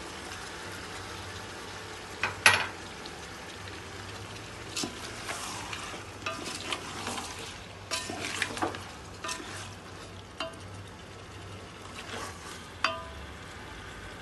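Chicken pieces and chopped tomatoes sizzling in oil in a large aluminium pot, stirred with a wooden spatula that scrapes and clacks against the pot. A sharp knock about two and a half seconds in is the loudest sound. Most of the stirring strokes fall in the middle of the stretch.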